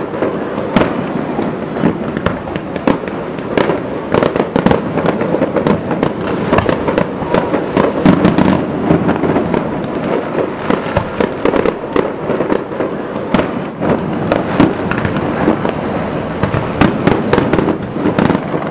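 Aerial fireworks shells bursting in a rapid, unbroken barrage of bangs and crackles, several reports a second.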